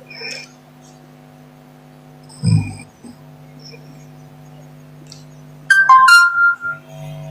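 A short electronic chime of a few quick clear notes, like a phone notification tone, sounds loudly near the end over a steady electrical hum. A brief low thump comes about two and a half seconds in.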